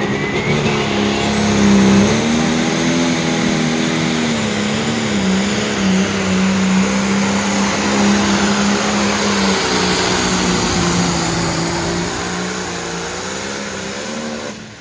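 Turbocharged diesel pulling tractor at full throttle, dragging a weight-transfer sled. Its engine note wavers, and a high whine climbs over the first two seconds. The engine sound eases and then cuts off sharply near the end as the pull stops.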